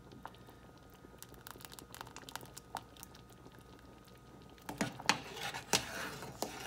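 Metal spoon stirring thick cornstarch-thickened gravy in a stainless steel saucepan: faint clicks at first, then louder scrapes and knocks of the spoon against the pan about two-thirds of the way in.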